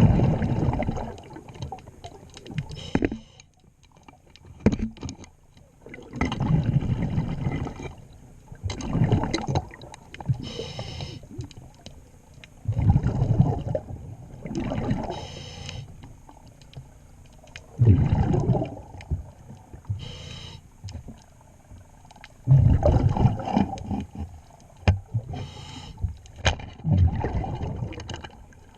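Diver's breathing regulator underwater: every few seconds a loud, low rumble of exhaled bubbles, alternating with a shorter, higher hiss of inhalation through the regulator.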